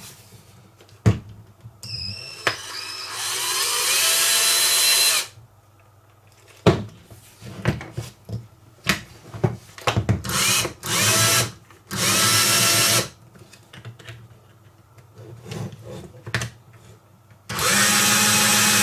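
Cordless drill/driver's small brushed DC motor, housing open, run up several times: the first run speeds up with a rising whine, then shorter runs follow, with plastic clicks and handling knocks between them. It runs without cutting out: the owner says the stalling fault no longer shows.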